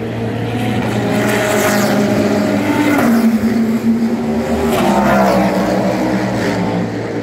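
Race cars passing at speed on the circuit, each engine note rising then dropping as it goes by; two passes, the second about five seconds in, over a steady low hum.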